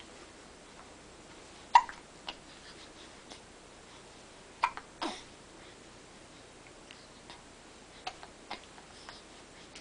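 Baby hiccuping: short, sharp hics at uneven gaps of about a second or two. The loudest comes about two seconds in, a pair near five seconds, and fainter ones near the end.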